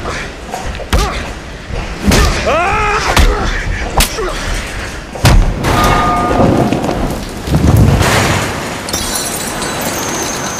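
Hand-to-hand fight sounds: heavy punches and body impacts landing roughly a second apart, with grunts between them. Rushing, splashing water grows into a steady hiss in the second half.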